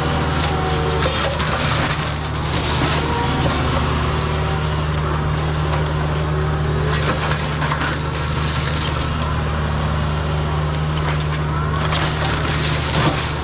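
Kubota U55-4 mini excavator's diesel engine running steadily while the hydraulic flail mower on its arm chews through brush, with uneven crunching and splintering of wood.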